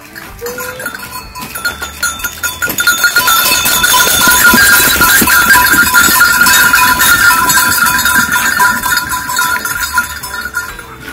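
A herd of goats passing close by, their neck bells clanking continuously. The sound builds as the herd approaches, is loudest in the middle and fades as the goats move off.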